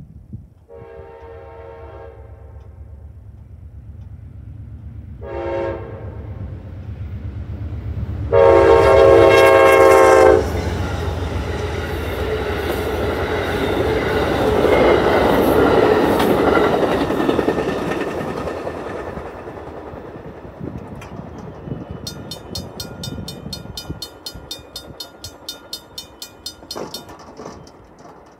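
Amtrak P42 locomotive horn sounding a long blast, a short one and a final loud long one, followed by the passenger train rumbling and clacking over the crossing. As the train clears, the crossing's Griswold mechanical bell is heard striking about four times a second, then it stops near the end.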